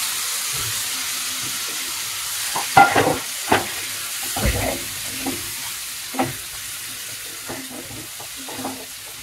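Mashed roasted eggplant and vegetables sizzling in hot mustard-oil tempering as they are stirred with a silicone spatula, with irregular knocks and scrapes of the spatula against the pan. The sizzle slowly dies down.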